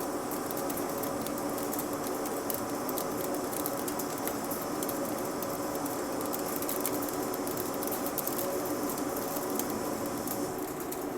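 Janus Duty 12 CNC lathe running a turning cut: a steady machine hum with a rapid, irregular high crackle of cutting on top. The crackle stops shortly before the end, leaving the hum.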